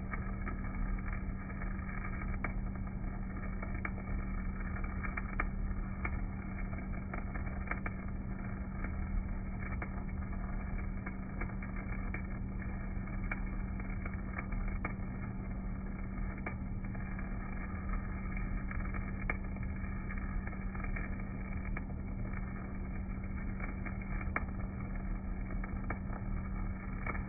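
Stick welding with a basic EZ50 electrode: irregular crackles and pops from the arc over a steady low hum from the Elin rotary DC welding set.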